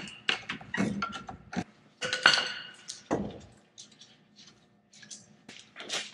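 Irregular metallic clinks and clanks of tools and brake parts being handled while working the front brake caliper and pads off a Jeep Wrangler TJ. The loudest is a ringing clank a little over two seconds in; a quieter stretch follows before a few more small clicks near the end.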